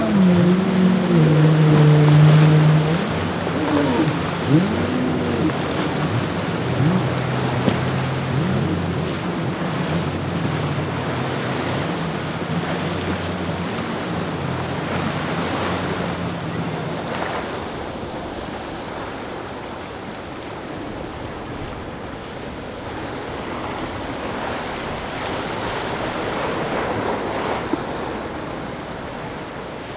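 Boston Whaler 420 Outrage's outboard engines running through the inlet, their pitch rising and falling, over a rush of waves and wind on the microphone. About seventeen seconds in the engine tones drop away, leaving only the surf and wind noise.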